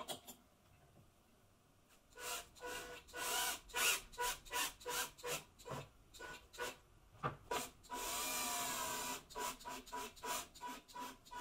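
Cordless drill-driver driving screws into wooden boards. The motor runs in short bursts, about two or three a second, with one steady run of about a second near the two-thirds mark before the bursts resume. A single click comes first, then about two seconds of quiet.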